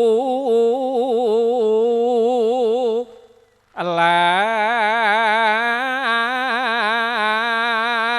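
A single voice chanting Javanese sung verse unaccompanied, in long held notes with a wide vibrato. The first phrase breaks off about three seconds in, and a second long phrase begins just under a second later.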